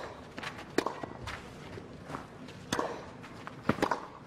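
Tennis rally on a clay court: a handful of sharp racket-on-ball strikes and bounces a second or two apart, with the players' footsteps scuffing on the clay between them.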